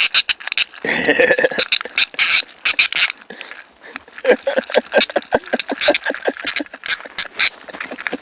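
Fishing reel being cranked, a rapid run of ratcheting clicks.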